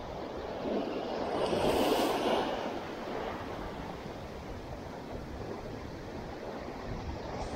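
Sea waves washing in, one swelling up to its loudest about two seconds in and fading away, over a steady hiss of surf.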